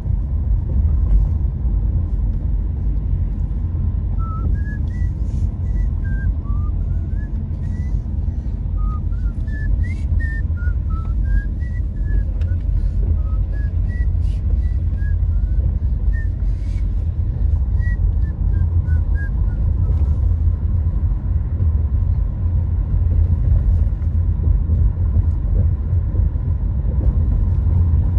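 Steady low rumble of a car driving slowly, heard from inside the cabin, with engine and tyre noise. From about four to twenty seconds in, a faint tune of short high notes plays over it.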